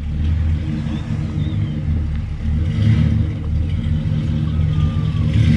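Engine of a classic full-size car running with a low, steady rumble as it pulls into a driveway at low speed.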